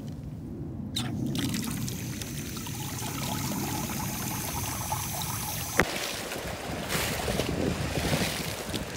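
Water running from an outdoor tap, turned on about a second in. Near six seconds the sound changes to a shallow stream flowing over stones.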